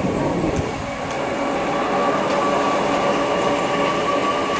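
Steady mechanical running noise of a passing vehicle, with a steady whine that grows stronger about two seconds in.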